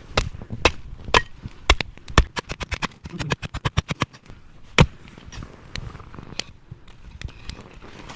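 Firewood being worked by hand: a string of sharp wooden knocks and cracks, with two quick runs of rapid taps a few seconds in and the loudest single knock near the middle.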